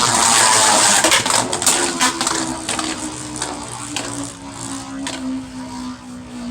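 Two Beyblade spinning tops whirring in a plastic stadium, clattering against each other in quick collisions that thin out after about two seconds. They settle into a steady spinning hum that slowly drops in pitch as they lose speed.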